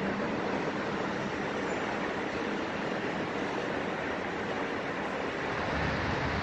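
Steady rushing noise of a bilevel commuter train rolling away along the tracks, blended with distant traffic hiss.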